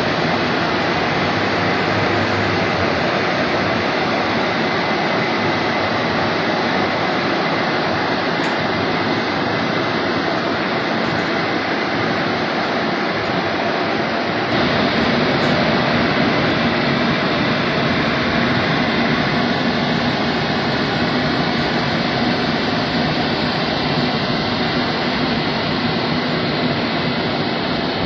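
Roll-over car wash's electric drying blowers running, a loud steady rush of air. It grows a little louder about halfway through.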